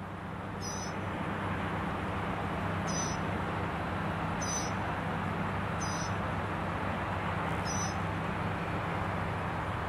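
Steady noise of airliner jet engines with a low hum underneath, and five short high chirps about a second and a half apart.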